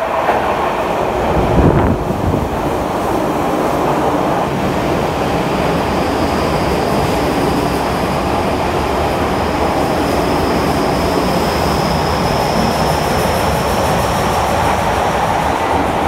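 Express train passing through an underground station at speed without stopping. A loud rush comes as the front of the train arrives about two seconds in, then a steady rumble of wheels on rail carries on as the cars go by. A thin high whine runs through the second half.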